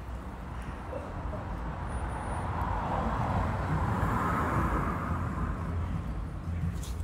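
A road vehicle passing by: its steady noise swells to a peak about halfway through and fades again, over a low rumble.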